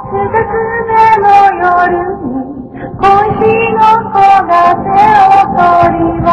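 A high voice singing a slow melody of held, gliding notes over instrumental music, dipping briefly about two and a half seconds in.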